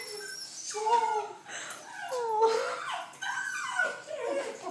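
Small dog whining and whimpering in excited greeting, a string of high, wavering cries that rise and fall in pitch.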